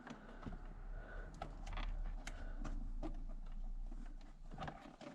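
Faint scattered clicks and light rustling of small parts being handled, over a low steady hum.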